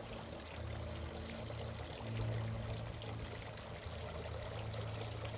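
Water pouring and trickling steadily in a bird bath, over a steady low hum.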